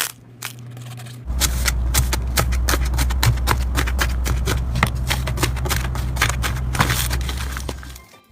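Slime being squeezed and worked by hand, giving a dense run of crackles and small pops. A steady low hum starts about a second in and stops near the end.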